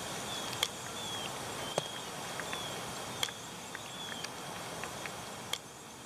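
Quiet outdoor ambience: a steady hiss with several faint, short, high chirps and a handful of sharp clicks.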